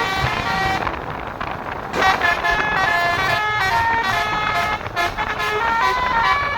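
Basuri telolet bus horn, a multi-tone air horn, playing a quick tune of stepped notes that change every fraction of a second.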